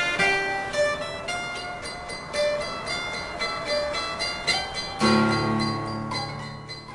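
Background music of plucked string notes, guitar-like, playing a slow melody. About five seconds in it lands on a louder, low held chord that fades away near the end.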